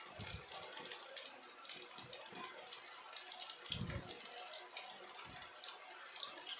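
Oil sizzling and crackling steadily around seer fish steaks shallow-frying in a pan, with a few soft thuds as a silicone spatula turns and presses the fish.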